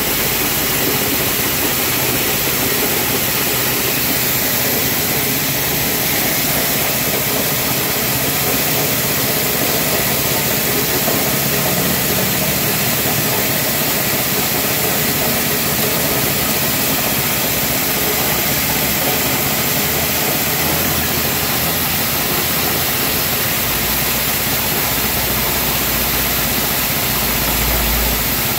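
Small petrol engine running steadily, driving a dry coffee huller and its blower fan while it hulls dried coffee beans. The sound is a loud, even mechanical rush of engine and air with no breaks, and there is a little extra low rumble near the end.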